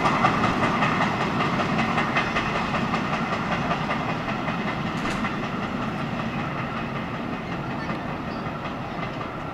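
Freight train's covered wagons rolling away over the rails, their wheels running on the track. The sound fades steadily as the end of the train recedes.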